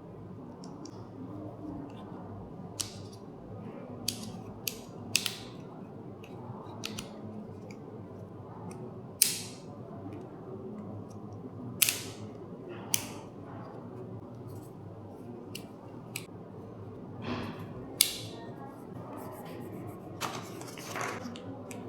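Hands unpacking an action-camera kit and its accessories: scattered sharp clicks, taps and short rustles of plastic parts and packaging, over a low steady background.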